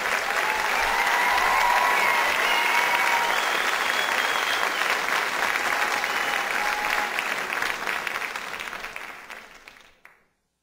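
Theatre audience applauding, with a few cheers rising above the clapping; the applause fades out near the end.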